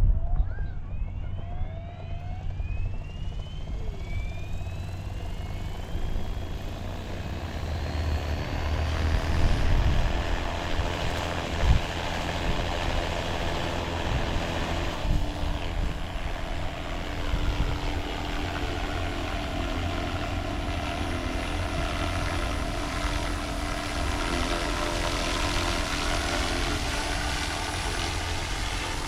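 Small helicopter flying low, its rotor and engine running steadily, the sound sweeping in pitch as it moves past, twice over. A single short knock about twelve seconds in.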